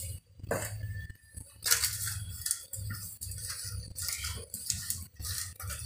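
Hands rubbing a wet spice marinade into raw pomfret slices on a steel plate, in irregular bursts of squelching and scraping with light knocks of the metal plate.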